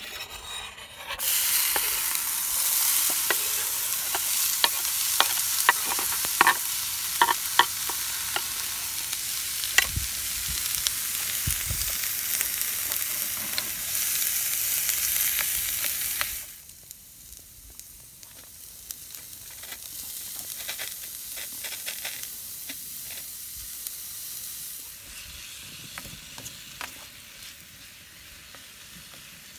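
Diced onion hitting a hot iron skillet and sizzling loudly, stirred with a wooden spatula that clicks and scrapes against the pan. About halfway through the sizzle suddenly drops to a quieter frying sound as meat and onion are stirred together.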